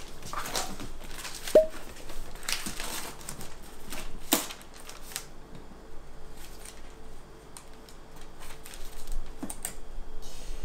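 Irregular clicks, knocks and rustling of small objects being handled, with a short clink about one and a half seconds in.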